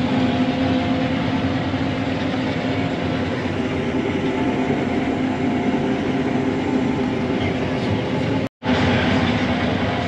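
John Deere combine running steadily under load while harvesting soybeans, heard from inside the cab: an even mechanical drone with a constant hum. The sound drops out completely for a moment about eight and a half seconds in, then resumes.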